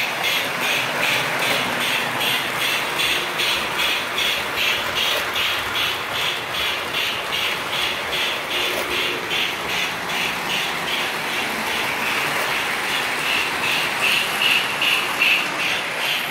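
O scale model trains running on three-rail track: a steady running clatter of motors and wheels with an even beat about three times a second.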